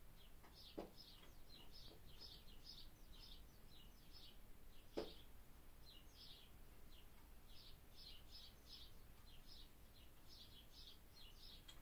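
Faint, quick high bird chirps in a steady run, with two soft knocks, one just under a second in and a slightly louder one about five seconds in.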